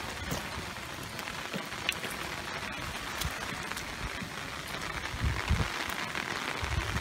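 Steady rain falling on wet pavement and grass, an even hiss scattered with sharp ticks of individual drops, with a couple of low rumbles near the end.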